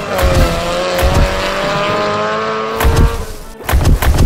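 Dubbed car sound effect: a long squealing whine that dips slightly and then holds, fading out about three seconds in, laid over background music with a heavy thumping beat.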